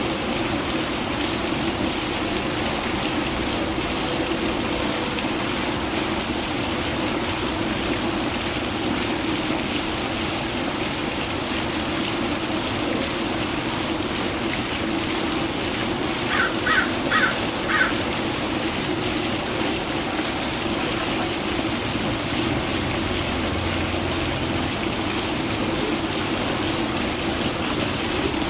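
A parrot gives four quick calls in a row a little past halfway, over a steady rushing background noise.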